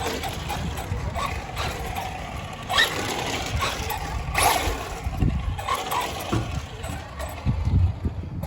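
Traxxas Slash 4x4 VXL electric RC truck being driven, its motor and tyres heard in short surges over a constant low rumble, the loudest about three and four and a half seconds in.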